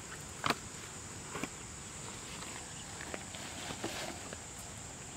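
Steady high-pitched insect drone, with a few short knocks and rustles from close handling, the loudest about half a second in.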